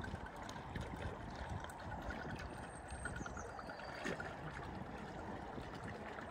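Floodwater running and sloshing through a flooded ford, with a low, uneven rumble underneath.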